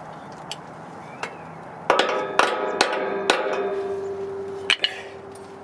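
Hammer driving the new grade 8 half-inch bolt home through the front leaf-spring shackle: about four sharp metal blows roughly half a second apart, with a ringing tone that hangs on after them. A few lighter metal clicks come before and after.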